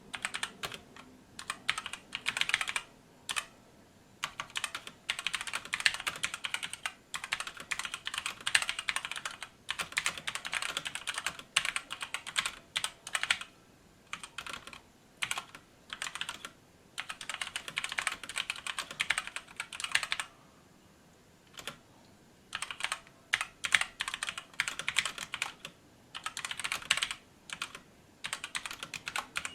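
Typing on a RisoPhy wireless mechanical gaming keyboard with linear red switches: rapid keystrokes clacking as the keys bottom out, in runs broken by short pauses, one of about two seconds past the two-thirds mark.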